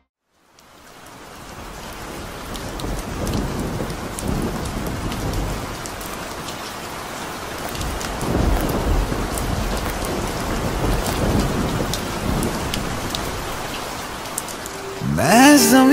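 Steady rain falling, fading in over the first couple of seconds, with low rumbles of thunder about eight and eleven seconds in.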